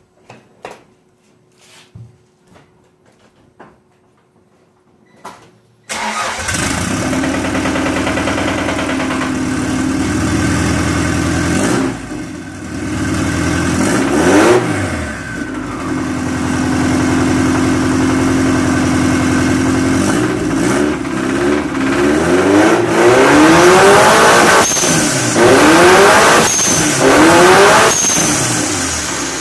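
A few faint clicks, then an engine with a rod knock starts about six seconds in and runs, revved repeatedly so its pitch rises and falls several times. The knock is taken to come from a worn connecting-rod bearing, with oil pressure at only 10 psi.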